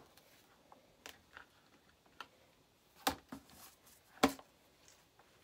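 A pink plastic storage case being opened and handled, giving a few short sharp clicks and knocks, the two loudest past the middle, with quiet in between.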